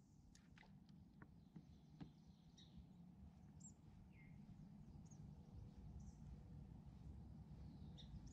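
Near silence: faint lakeside ambience with a low steady rumble, a few faint clicks in the first two seconds, and scattered faint, high, short bird chirps.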